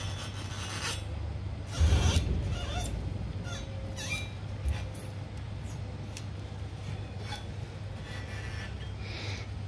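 Rubbing and scraping as a gloved hand handles a bare aluminium cylinder head from an Audi RS3 DAZA engine on a steel bench, with a louder scrape about two seconds in and a few light clicks. A low steady hum runs underneath.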